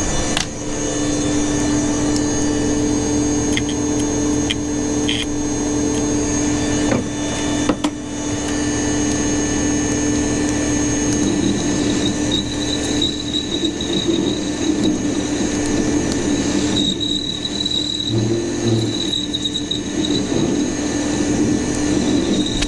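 A workshop power tool running steadily with a constant hum and a high whine. About halfway through, a higher squealing tone joins and comes and goes.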